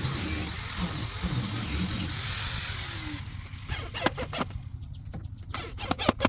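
A motor running for about three seconds, its pitch rising and falling, followed by a series of sharp knocks near the end.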